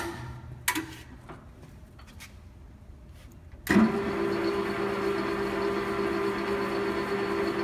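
Nardini 1640 engine lathe: a click as the spindle is switched off and it stops quickly, then a few light clicks of the controls while it stands. About four seconds in, the spindle starts with a thump and runs steadily at a new speed, with an even gear-train hum.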